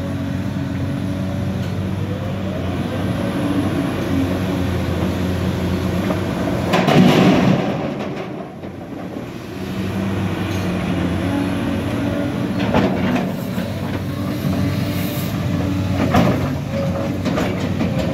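Cat hydraulic crawler excavator's diesel engine running steadily, with a loud crash of stone and dirt about seven seconds in as a bucket load drops into the steel bed of the dump truck. Near the end the bucket clatters and scrapes through broken paving stones.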